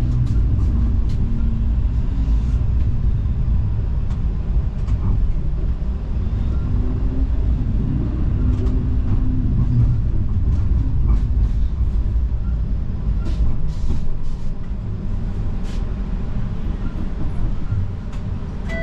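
Toronto streetcar running along its rails, heard from inside the car: a steady low rumble with a faint whine that rises and falls, and scattered clicks and knocks.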